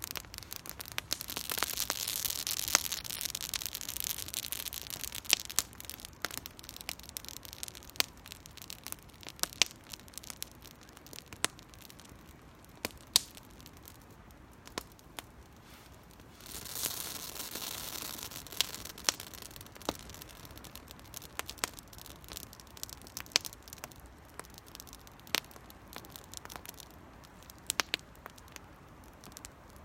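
Small wood fire kindled with dry cedar needles, crackling with scattered sharp pops. A rushing hiss swells twice, near the start and about halfway through.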